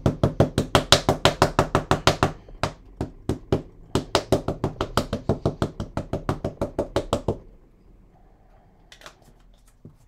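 A StazOn ink pad is tapped again and again onto a rubber stamp mounted on a clear acrylic block, inking it. The taps come as a quick, even run of plastic knocks, about six a second, with a brief break after two seconds, and stop about seven seconds in.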